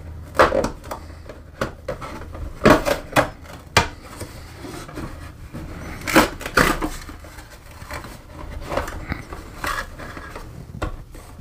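Cardboard K-Cup box being torn open along its perforated, pod-shaped punch-out panel: a series of sharp, irregular ripping and crunching tears, loudest about half a second in, around three seconds and around six seconds. Near the end come smaller clicks as hands handle the plastic pods inside.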